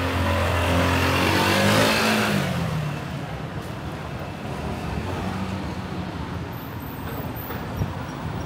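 A motor vehicle passes close by: its engine grows loud, peaks about two seconds in and drops in pitch as it moves away. Steady street traffic noise follows.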